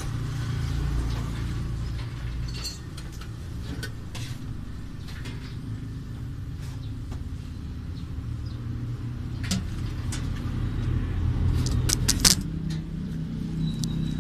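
Small clicks and rattles of wiring and connectors being handled under a jeep's dashboard, over a steady low rumble, with a burst of sharper clicks about twelve seconds in. A faint high steady whine starts near the end.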